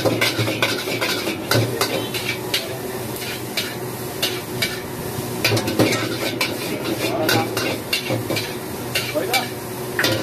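Chowmein noodles sizzling as they are stir-fried in a wok over a gas burner. Metal spatulas scrape and clank against the wok again and again as the noodles are tossed.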